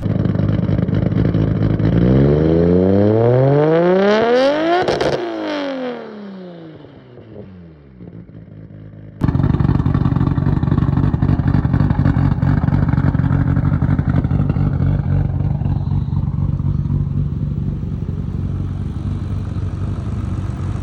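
Nissan Skyline R32 GT-R's twin-turbo straight-six through a titanium Tomei catback exhaust with no catalytic converter. The engine note climbs over about three seconds, peaks about five seconds in, then falls away and fades. After an abrupt cut about nine seconds in, the engine runs loud and steady.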